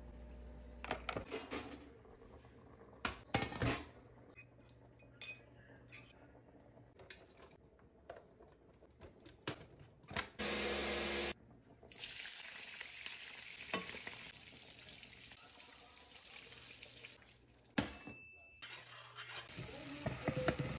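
A metal spoon knocking and scraping against a cooking pot while stirring. Partway through, a countertop blender runs for about a second. Then comes a steady hiss of frying, with sizzling as sliced onions are stirred in hot oil near the end.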